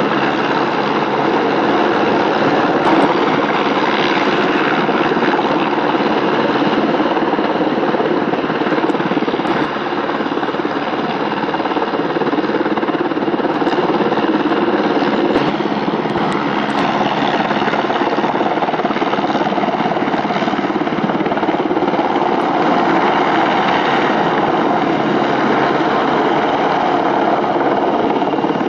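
PZL W-3 Sokół helicopter's rotors and twin turboshaft engines running steadily at high power, a dense rotor noise with a steady turbine whine, while it settles onto a slope and lifts off again near the end.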